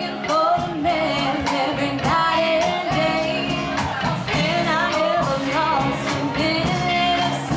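Live band playing a song with a lead vocalist singing over a steady drum beat.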